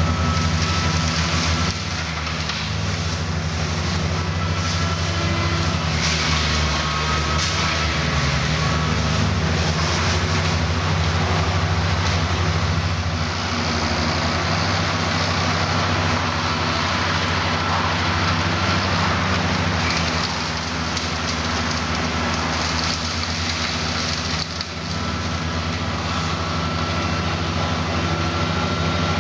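New Holland tractor running steadily under load while its side-arm flail mower and grass-suction collector work the verge: a steady engine drone under a continuous rushing hiss.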